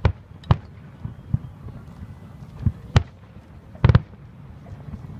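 Aerial firework shells bursting in a series of sharp booms at uneven intervals, about six in all, with a close double bang about four seconds in.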